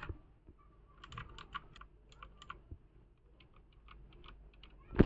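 Clicky blue mechanical keyboard switch pressed repeatedly, giving groups of sharp clicks, with one louder knock near the end.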